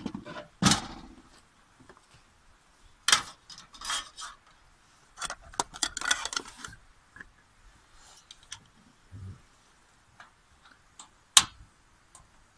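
Cookware and utensils being handled: a frying pan and kitchen things knocking and clattering in short runs, with a single sharp click near the end.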